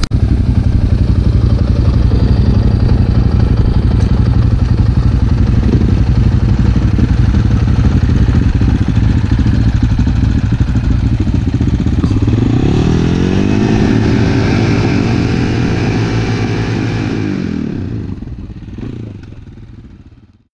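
Dual-sport motorcycle engines running close by with a steady low note. From about twelve seconds in, one engine's pitch rises and then falls as it revs, and the sound fades out near the end.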